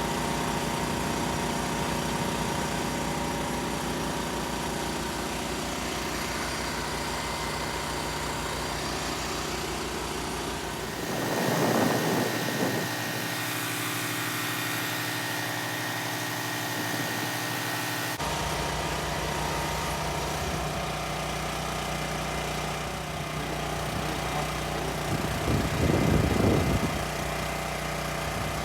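Steady engine-like hum of a pressure-washing drone rig, a DJI Agras T30 crop-spraying drone modified for washing. A louder rushing swell comes about 11 seconds in and another near the end. For several seconds in the middle the deep part of the hum drops away.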